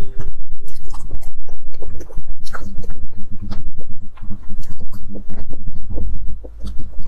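Close-miked chewing of a chocolate-glazed dessert: a dense run of small wet mouth clicks over a low rumble.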